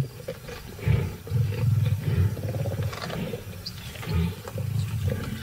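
Lions growling in repeated low rumbles while feeding together on a fresh kill.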